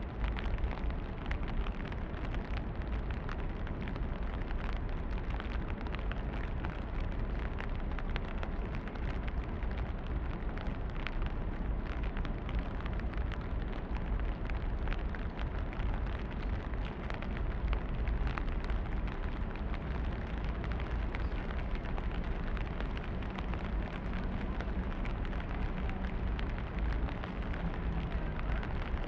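Steady rain falling on a street, a dense patter of close drops ticking on surfaces, over a continuous low rumble.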